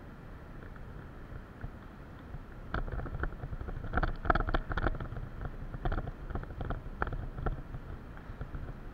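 Wind rumbling on the microphone, with an irregular run of sharp knocks and clicks starting about three seconds in, thickest a second or so later.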